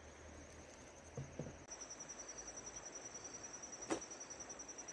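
Faint insects chirping: a steady, high, rapidly pulsing trill, with a single sharp click about four seconds in.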